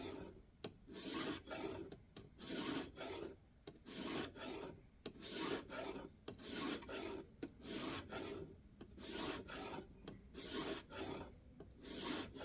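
A 1500-grit diamond sharpening plate on a guided sharpening system stroked across the edge of an N690 steel knife blade, in a steady rhythm of short rasping strokes about two a second.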